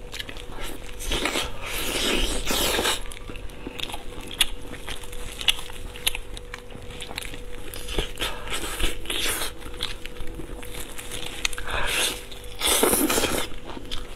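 Close-miked mouth sounds of a person biting and chewing braised, glazed pork ribs off the bone: wet smacking and crunching with many small clicks. There are two louder, noisier stretches, about two seconds in and near the end.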